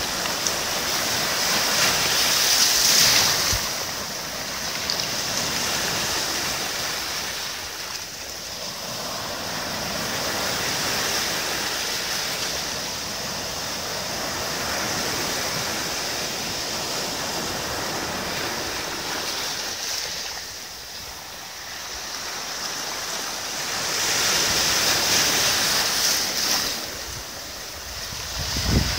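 Sea waves breaking close by and their foam rushing up and draining back over the sand, a continuous wash that swells and ebbs. The loudest surges come about three seconds in and again near the end, with a lull a little past the middle.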